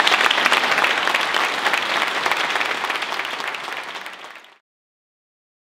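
Audience applauding: dense clapping that fades down and cuts off to dead silence about four and a half seconds in.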